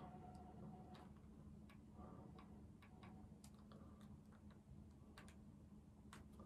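Near silence: room tone with a low hum and a scatter of faint, irregular clicks.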